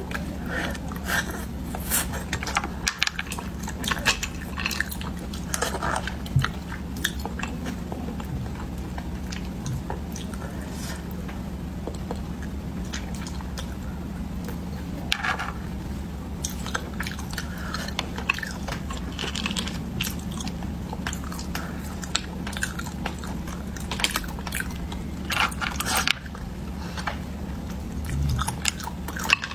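Close-miked chewing of stir-fried sea snail meat, with wet mouth sounds and scattered sharp clicks of snail shells, over a steady low hum.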